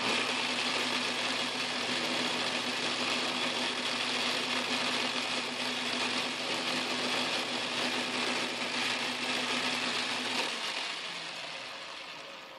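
Metal lathe running, with an end mill in the spindle taking a light milling cut on a round-bar spanner-wrench blank clamped in a milling-attachment vise. It makes a steady whirring with a low motor hum. The hum stops about ten seconds in and the running noise fades out.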